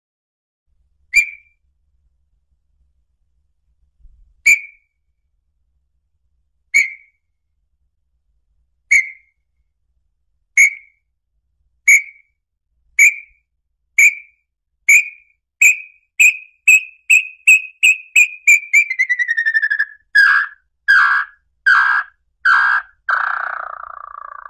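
Small-billed tinamou (lambu-pé-vermelho) song: clear whistled notes on one pitch, slow at first and then coming faster and faster. They then slide lower in pitch and end in a quick run of louder notes.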